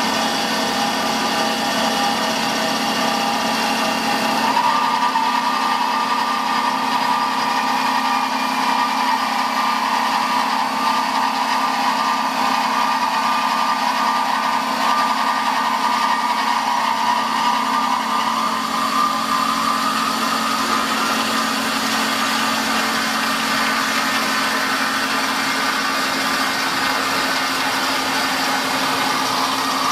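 CNC band saw cutting through a metal H-beam under coolant spray: a steady machine whine with a constant hum underneath, its higher tone getting stronger about four seconds in and creeping up in pitch later.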